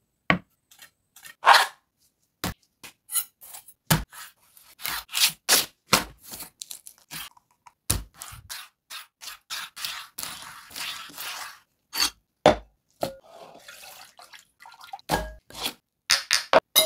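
Short scrapes, taps and knocks of food preparation on a wooden cutting board, with brief silences between them, as a raw leatherjacket fish is handled with gloved hands. About ten seconds in there is a longer stretch of scraping, and near the end come a dull knock and the clinks of glass spice jars being set down.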